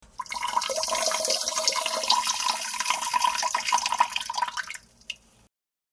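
A person urinating, a steady stream splashing into toilet-bowl water. It starts just after the beginning, tapers off near the end into a brief dribble with a final drop, then stops.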